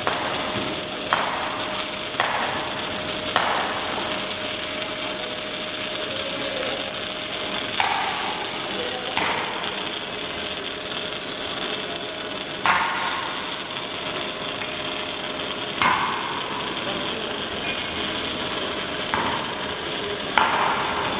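MIG welding running continuously, a steady crackling hiss, broken every few seconds by sudden sharper bursts that fade away.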